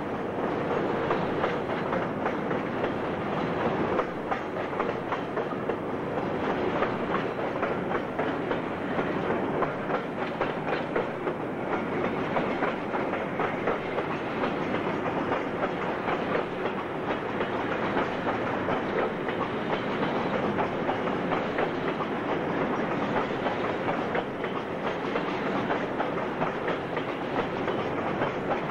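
Freight train rolling past, its cars' wheels clacking steadily over the rail joints.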